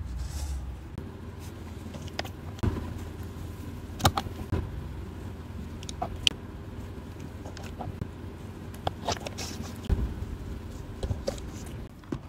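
Scattered light taps and clicks, about ten in all, as miniature doll clothes, hangers and a tiny handbag are set down on the pink styrofoam shelves and rail of a homemade Barbie boutique, with soft rustling of the handling between them. A low steady hum runs underneath.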